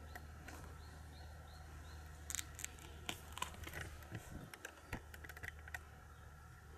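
Faint, irregular light clicks and scuffs from the person filming as they walk on a gritty concrete path, bunched between about two and six seconds in, over a low steady hum. A few short, faint bird chirps sound in the first couple of seconds.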